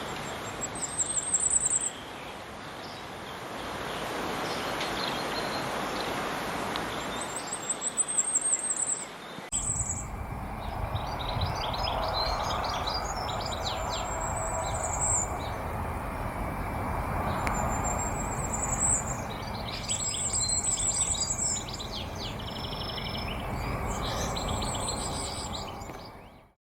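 Firecrest singing: short, very high, thin phrases of rapid notes that rise in pitch, repeated several times. About a third of the way in, the background changes and other birds chirp at a lower pitch between the phrases, over a steady outdoor hiss.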